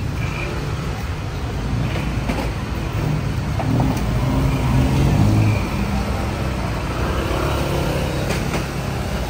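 Steady road traffic rumble, with a heavy vehicle's engine swelling to its loudest about five seconds in. A few light clicks sound over it.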